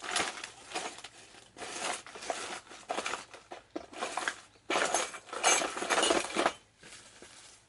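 Small hardware parts clattering and clinking as someone rummages through them, busiest and loudest for a couple of seconds past the middle, then dying down.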